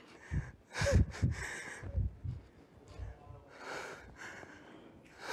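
A man weeping close to a clip-on microphone: several short, sharp sniffs and gasping sobs. He is choked up and unable to go on reciting the Quran.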